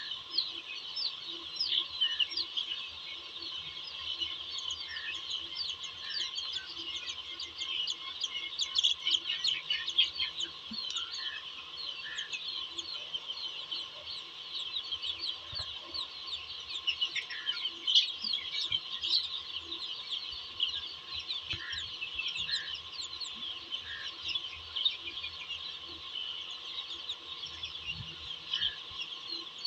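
A large flock of young chicks peeping constantly in a dense, high-pitched chorus, with scattered lower clucks from older chickens.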